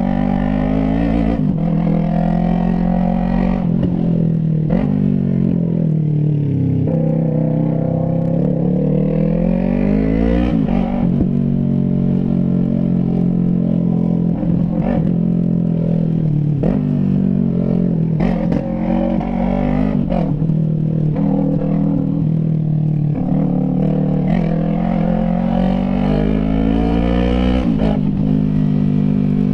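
Yamaha MT-03 parallel-twin engine through a straight pipe with no silencer, pitch rising and falling over and over as the rider accelerates and eases off through the gears, with short sharp pops now and then.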